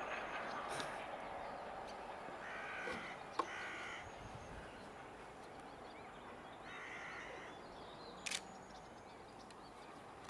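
A crow cawing three times, each call about half a second long, over a background that slowly fades. Two sharp clicks, one during the second call and one about eight seconds in.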